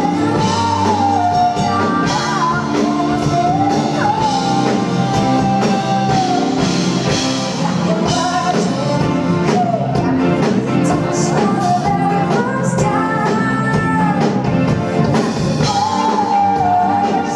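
Live rock-style band music: drums keeping a steady beat under keyboards and guitar, with a sliding sung melody on top.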